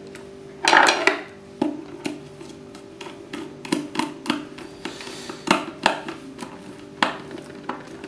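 Screwdriver turning a terminal screw on a contactor to clamp a wire: a string of small, irregular metallic clicks and scrapes, with a louder rustle about a second in. A faint steady hum lies underneath.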